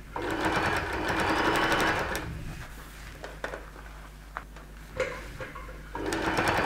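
Domestic electric sewing machine with a bias binding foot stitching binding onto a seam edge: it runs for about two seconds, stops, and starts again about six seconds in. In the pause there are a few light clicks and knocks.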